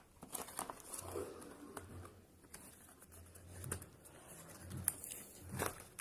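Faint rustling and a few light clicks of a phone box's packaging and accessories being handled.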